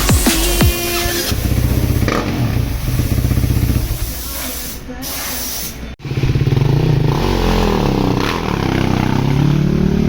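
Husqvarna enduro motorcycle engine running after a rebuild with new gaskets, revved up and down a few times in the second half.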